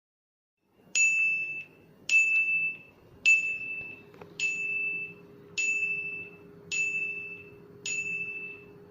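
A repeating high-pitched electronic ding used as the test sound source: single-pitch pings with a sharp start and a quick fade, seven of them at about one per second. A faint steady low hum joins about four seconds in.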